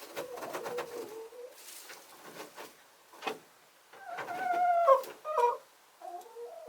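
Hens making soft, contented calls: a low trilling purr at the start, a longer drawn-out note that rises and falls about four seconds in, then a few short clucks near the end.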